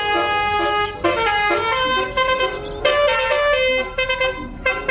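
Bus telolet horn: a multi-tone musical air horn playing a tune of short stepped notes, several tones sounding together.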